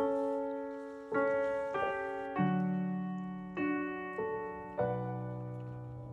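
Background piano music: slow, gentle notes and chords struck about once a second, each ringing and fading before the next.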